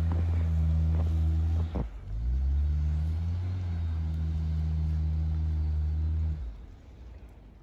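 Mail truck's engine held at steady high revs as it struggles in the snow. It dips briefly about two seconds in, climbs back up and holds, then drops off near the end.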